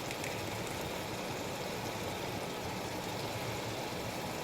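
Chicken karahi sizzling in its pot as it cooks down: a steady, even hiss.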